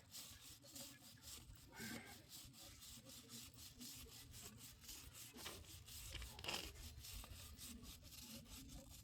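Faint scrubbing of a motorcycle drive chain with a stiff brush, in quick repeated strokes.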